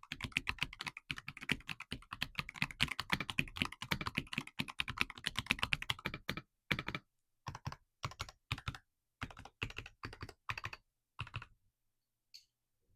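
Typing on a Magegee Air 75 mechanical keyboard with Durock Ice King linear switches and clear keycaps, the keys pressed with rubber pen tops rather than fingernails. Fast continuous typing for about six seconds, then slower single keystrokes, stopping shortly before the end.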